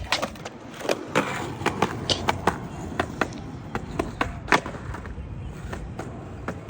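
Skateboard rolling on pavement: a steady rumble of the wheels with many short, sharp clicks and clacks, the loudest about four and a half seconds in.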